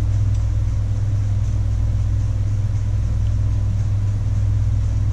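Steady low hum with no change and no distinct knocks.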